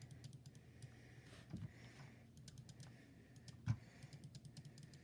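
Logitech G502 Hero gaming mouse's right button being clicked over and over: light, sharp clicks that come quicker in the second half, with one louder knock a little past halfway.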